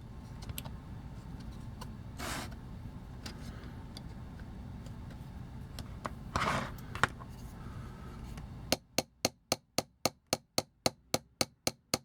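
Light, rapid hammer taps on a pin punch, about three to four a second, driving a pin out of a vintage toy. They start about two-thirds of the way in, after a stretch of low hum and a few handling clicks.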